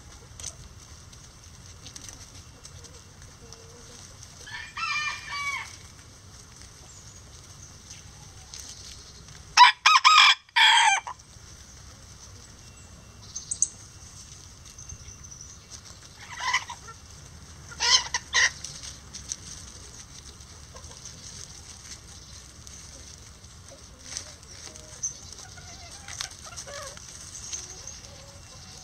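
Bantam rooster crowing once, loud, about a third of the way in, amid scattered hen clucks and short calls from the flock.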